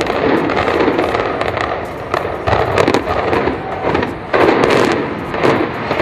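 Building implosion: a rapid, crackling series of sharp bangs from demolition charges firing through a concrete high-rise tower as it collapses.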